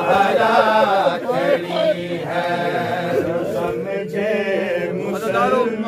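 Men's voices chanting a noha, a Shia mourning lament, unaccompanied, in long, wavering melodic lines with several voices overlapping.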